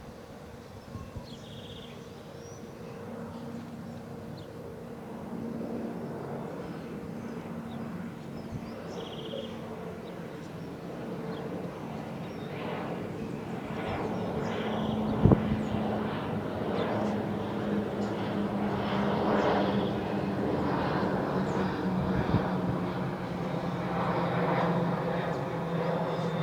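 Jet engines of a Boeing 737-800 (CFM56-7B turbofans), a steady drone growing gradually louder as the aircraft comes closer. A single sharp knock about fifteen seconds in.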